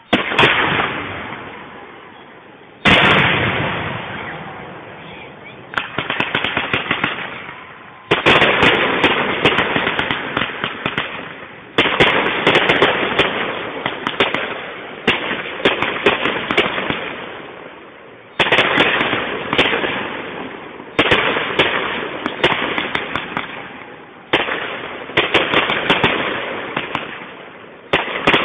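Fireworks display: about ten aerial shells bursting, one every few seconds, each sudden loud bang followed by a dense crackle that fades away.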